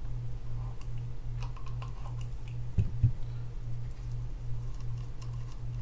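Light scattered clicks and ticks of a tool working the rotor nut loose on a Penn Spinfisher VI 7500 spinning reel, with two soft knocks about halfway through, over a steady low hum.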